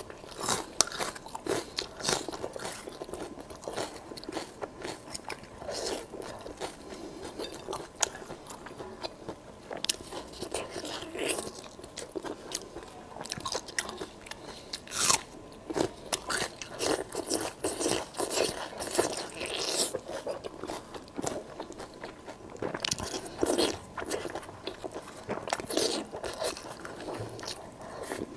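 Close-miked eating sounds: a person biting into and chewing glazed braised meat and raw red onion, with many irregular wet bites and sharp clicks.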